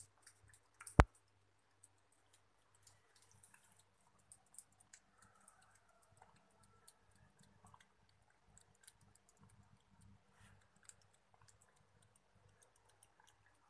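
Cat lapping milk from a bowl: a run of small, quick clicks from its tongue, with one sharp, much louder click about a second in.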